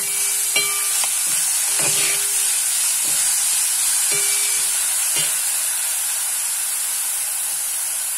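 Grated gooseberry sizzling in hot ghee in a steel pan while a metal spoon stirs it. The spoon scrapes and clinks against the pan about four times in the first five seconds, some strokes ringing briefly, then only the steady sizzle goes on.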